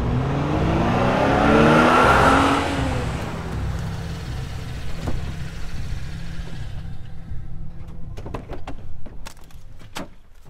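Car accelerating, its engine pitch rising over the first few seconds, then settling into a steady low rumble. Several sharp clicks and knocks come near the end.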